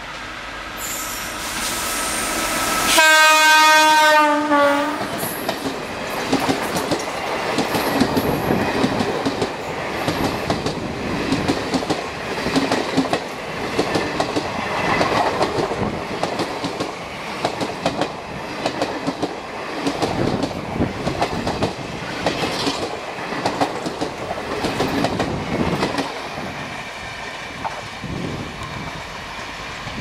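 Indian Railways WAP-4 electric locomotive hauling an express past at speed: its horn sounds loudly for about two seconds, a few seconds in, dipping in pitch at the end as it passes. Then the coaches rush by with a rhythmic clickety-clack of wheels over rail joints, easing off near the end.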